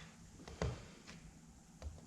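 Two light knocks about a second apart, the first the louder, as metal engine parts are handled, over quiet workshop room tone.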